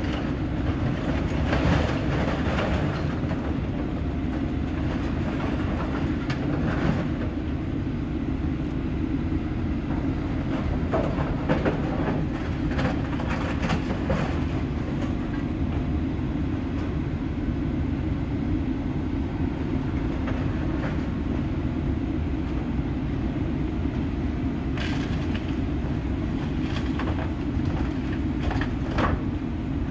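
Heavy John Deere excavator's diesel engine running steadily while its demolition attachment crushes and tears the metal body of a school bus, with bursts of crunching, scraping metal at intervals, heaviest about a third of the way in and near the end.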